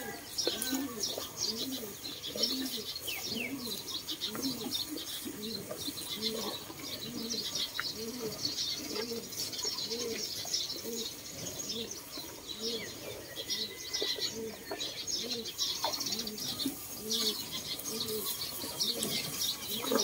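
Doves cooing in a steady, regular series of low rising-and-falling coos, about one a second, over the crackling rustle and crunch of cows pulling at and chewing dry rice straw close by.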